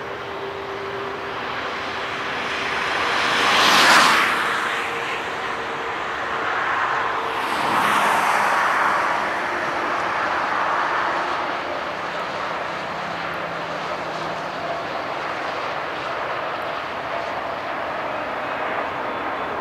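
Jet engine noise from a Boeing 777 freighter's GE90 engines on final approach, heard at a distance as a steady rush with faint steady tones. Two louder swells of passing noise rise and fade about four and eight seconds in.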